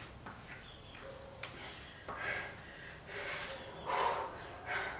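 A woman breathing hard through an exercise hold: about six short, forceful exhales, roughly one a second, the loudest about four seconds in.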